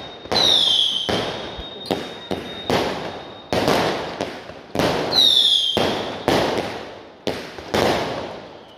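Aerial fireworks going off in quick succession, a dozen or so sharp bangs about one to two a second, each trailing off with a long echo between the courtyard walls. Twice a shell gives a short falling whistle as it goes up, near the start and about five seconds in.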